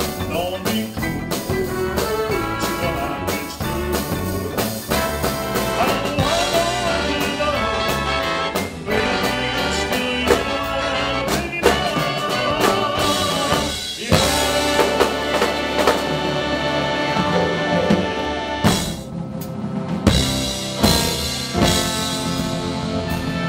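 Big band playing live: brass and saxophone sections over a drum kit, in a jazz style.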